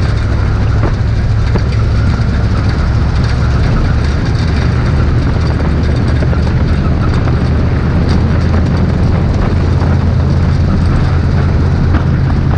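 A 1969 Chevrolet C60 dump truck driving on a gravel road, its fuel-injected 427 big-block Chevrolet V8 running steadily with a deep low drone, over scattered rattles and clicks from the truck.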